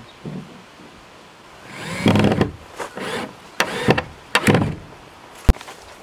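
Handling noise against a rough wooden board door: a loud scrape about two seconds in with a squeaky edge, several shorter scrapes and knocks, and one sharp click near the end.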